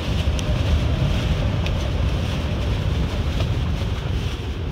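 Wind buffeting the microphone in a dense low rumble, over a steady hiss of wind and choppy, whitecapped water.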